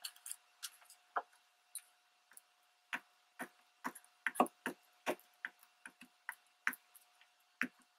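Scattered small clicks and crinkles of torn magazine paper strips being handled and pressed down, and a glue stick being worked over the paper, coming at irregular intervals.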